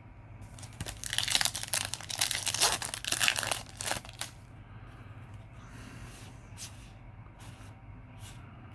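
Foil booster-pack wrapper being torn and crinkled for about three seconds, then quieter handling with a few light clicks.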